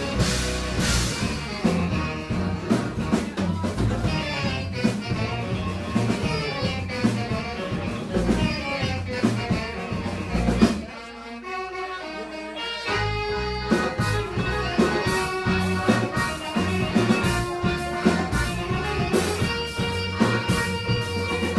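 Live band music: about halfway through, the drums and bass drop out suddenly, leaving held melody notes over a lighter, sparser beat.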